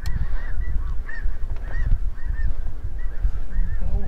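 Snow geese calling: a steady chorus of many short, high, overlapping yelps, with wind rumbling on the microphone.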